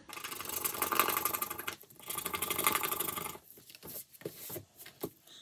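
Scratch-off coating being scraped off a paper savings-challenge card with a small tool. There are two runs of fast scratching, each about a second and a half, then a few scattered scrapes and taps.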